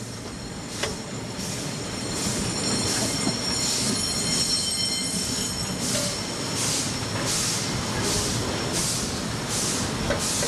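Queensland Railways A10 class steam locomotive No. 6 working under way, heard from the footplate: its exhaust beats come at an even pace, about one every 0.7 seconds in the second half, over the rumble of the running train. A high-pitched squeal sounds through the first half.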